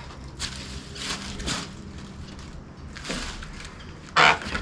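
Portable band sawmill running through a cut in a black walnut log: a steady engine hum with short rasping bursts of the blade in the wood, and a louder burst near the end.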